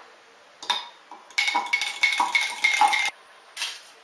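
Crumpled aluminium foil being handled, crinkling and clinking: a couple of single clicks, then a quick run of crackles lasting about a second and a half, and one more click near the end.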